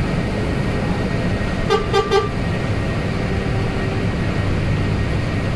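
A vehicle horn gives three short toots in quick succession about two seconds in, over a steady low rumble of traffic.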